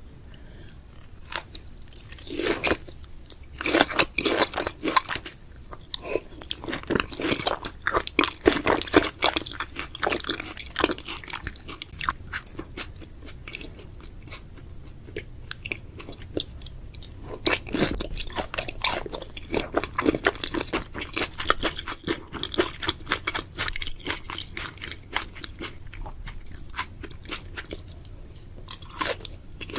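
Close-miked eating sounds: someone biting into and chewing raw tuna, a dense, irregular run of wet mouth clicks and crunchy bites that eases off for a few seconds midway.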